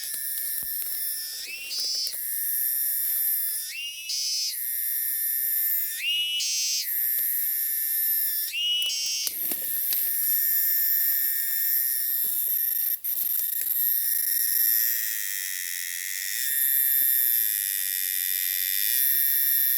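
Cicada calling: a continuous, very noisy high-pitched drone. In the first half it swells upward in pitch about every two and a half seconds, four times; after that it holds steady.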